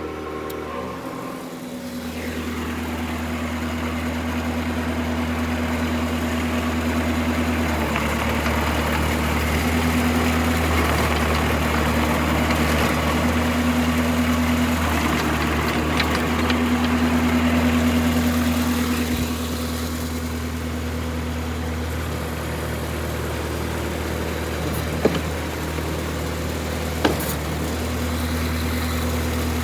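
Stump grinder engine running steadily, with a louder, rougher noise over it from about two seconds in until about nineteen seconds. Two sharp clicks near the end.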